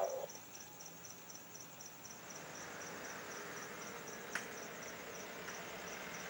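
Crickets chirping in an even pulse, about three chirps a second, while the twin turbofan engines of a Beechjet 400A business jet come up to takeoff power, a hiss that grows from about two seconds in. A short blip at the very start and one sharp click a little past four seconds.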